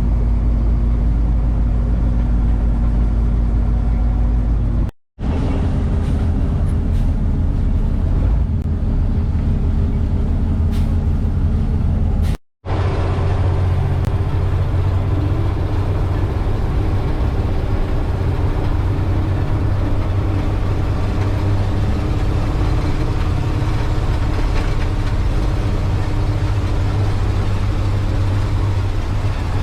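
Heavy diesel farm machinery running steadily while chopping corn silage, a loud continuous engine drone. The sound drops out briefly twice, about five and twelve seconds in.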